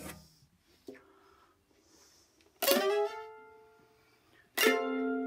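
Mandolin: a faint pluck about a second in, then two strummed chords about two seconds apart, each left to ring out.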